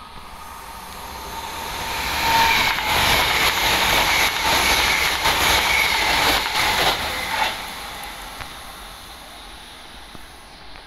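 TransPennine Express class 802 bi-mode passenger train passing through a station at speed: a rising rush as it approaches, about five seconds of loud wheel-on-rail noise with a steady whine and a few sharp clacks, then fading as it moves away.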